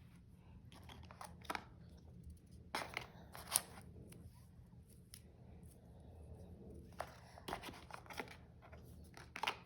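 Product packaging being handled and opened: irregular clicks, scrapes and short tearing and rustling noises, with the sharpest click about three and a half seconds in.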